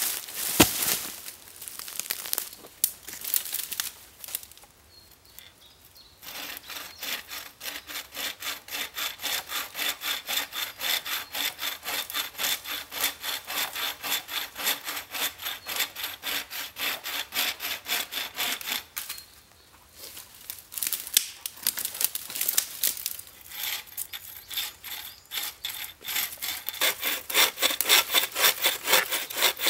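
Wooden-frame bucksaw cutting through a log in a steady rasping rhythm of about two strokes a second, with a short pause partway through before the sawing resumes. It opens with footsteps on the forest floor and a sharp knock.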